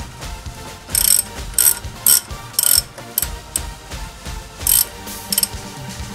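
Hand socket ratchet clicking in short bursts on its back-swings, about half a second apart with a gap near the middle, as the 15mm brake caliper carrier bolts are wound in and tightened.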